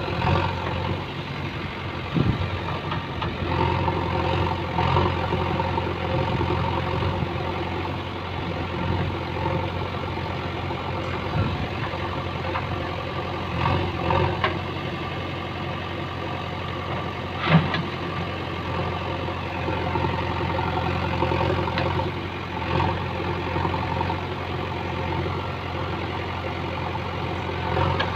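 JCB backhoe loader's diesel engine running steadily while the backhoe arm digs and dumps soil, with a few sharp knocks, the loudest about two-thirds of the way through.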